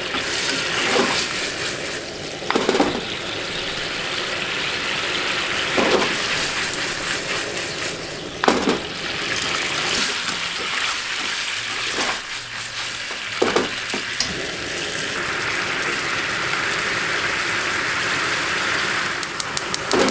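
Fried chicken tsukune sizzling in a frying pan, with a steady sizzle and about half a dozen sharp knocks of a utensil against the pan.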